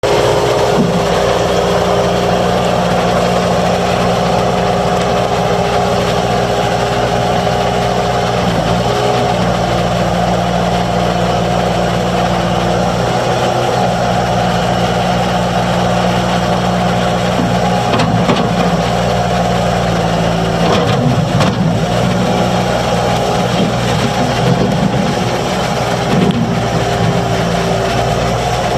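Bobcat S250 skid steer's diesel engine running steadily at a constant speed, with a few brief knocks or rattles in the second half.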